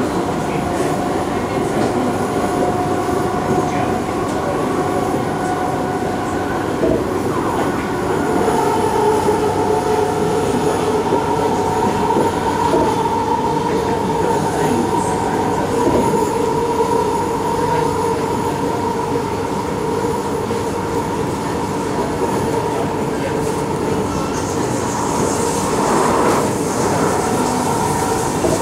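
Interior running noise of an SMRT C751B metro train on elevated track: a steady rumble of wheels on rail with a few steady whining tones from the traction equipment, which step up in pitch about eight seconds in. A high hissing squeal joins in near the end.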